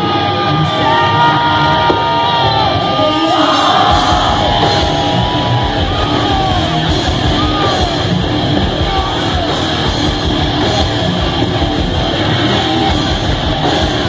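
Heavy metal band playing live, with distorted electric guitars. Held guitar notes ring at first, and the heavy low end of the full band comes in a little under four seconds in.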